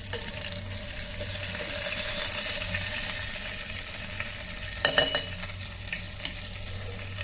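Chicken pieces sizzling in hot oil inside an electric kettle, a steady frying hiss, with a couple of sharp clinks about five seconds in.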